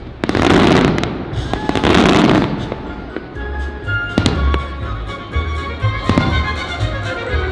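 Fireworks bursting over the show's music: two long loud bursts in the first couple of seconds, then sharp booms about four and six seconds in while music with a steady bass beat plays.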